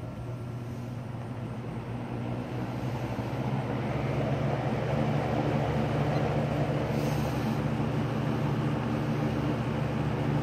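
Lakewood P-237 electric fan with a McMillan motor running, a steady hum and air rush that grows louder over the first four seconds and then holds. The motor has not been oiled.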